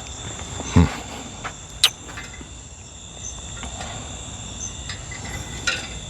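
Insects trilling steadily in a high, thin chorus with small repeated chirps. A dull thump comes a little under a second in, and a sharp click just before two seconds.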